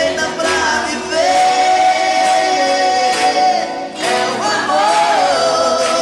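Sertanejo love song: male vocals hold long, sliding notes over instrumental accompaniment, with a short break about four seconds in before the next sung phrase.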